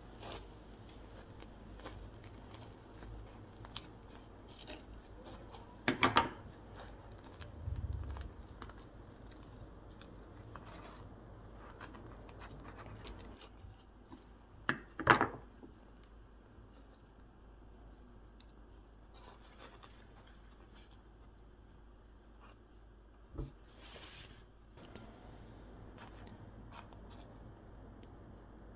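Crisp crust of freshly baked tornado salt butter rolls crackling as the bread is pressed and torn open: scattered small crackles, with two louder bursts of cracking about six and fifteen seconds in.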